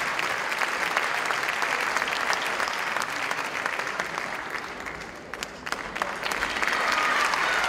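Audience applauding, thinning out briefly about two-thirds of the way through and then swelling again near the end.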